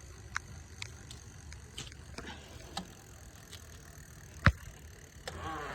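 Scattered light clicks from a crash-damaged bicycle's loose parts being worked by hand, with one sharp, louder click about four and a half seconds in.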